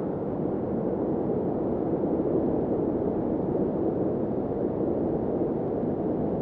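Snowstorm wind blowing steadily: a low, even rush with little hiss.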